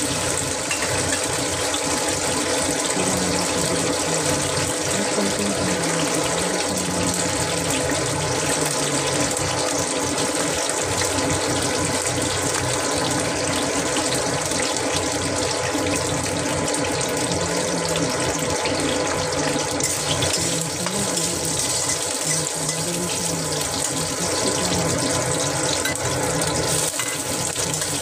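Cashew nuts frying in hot oil in a wok, a steady sizzle.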